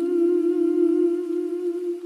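A woman humming one long, slightly wavering note that fades near the end.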